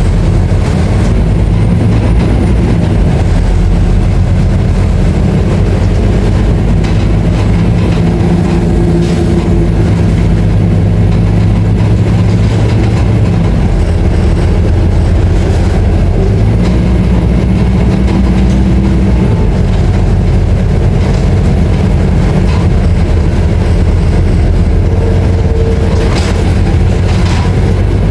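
Scania K310IA bus's diesel engine running while the bus is under way: a loud, steady low drone that shifts pitch a few times. Occasional clicks and knocks sound over it.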